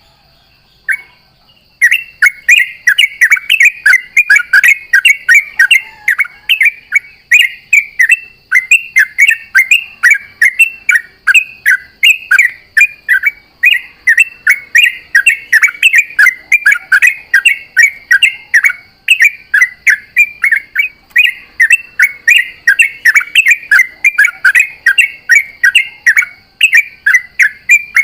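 Yellow-vented bulbul (trucuk) singing a loud, fast run of bubbly chattering notes without a break, starting about two seconds in after a single short note.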